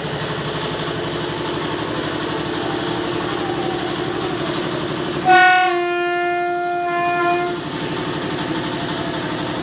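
An engine running steadily, then a loud vehicle horn blast about five seconds in that holds one steady pitch for about two seconds before stopping.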